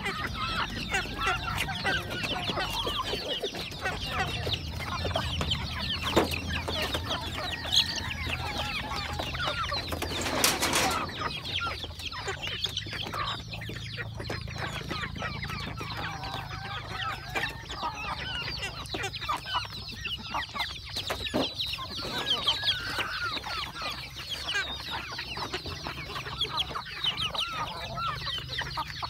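A flock of hens and chicks clucking and peeping busily while they feed, a steady chatter of many short calls. About ten seconds in, a brief rustling burst of noise.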